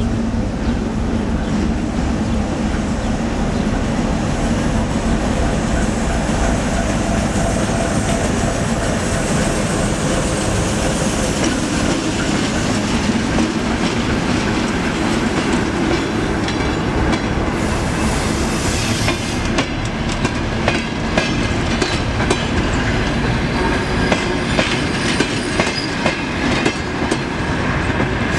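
A diesel-hauled passenger train passing close by. The locomotive's engine gives a steady low tone in the first half, then the coaches' wheels clack regularly over the rail joints as the cars roll past.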